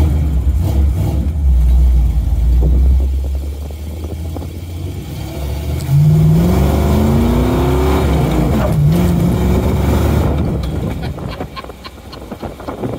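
A vehicle engine running with a loud low rumble, then accelerating from about six seconds in, its pitch rising, dropping briefly near nine seconds and rising again before it fades near the end.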